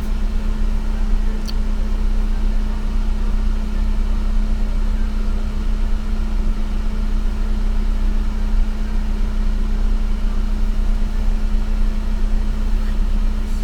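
Car engine running steadily with a constant low hum and rumble.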